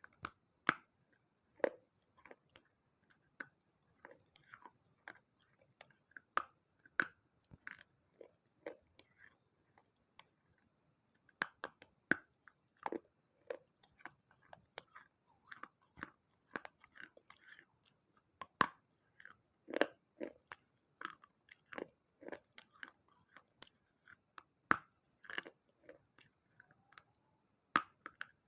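A person biting and chewing pieces of a water-soaked baked clay pot and saucer: a continuous run of sharp, irregular crunches.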